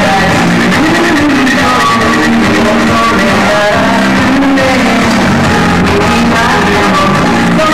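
Loud pop music with a melody line, dense and unbroken, sounding muffled and distorted as a recording on a degraded VHS tape.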